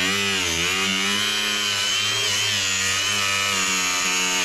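Handheld electric power tool running steadily as it sands old paint off the deck of a Sunfish sailboat, with a high whine whose pitch dips slightly now and then as the tool is pressed against the surface.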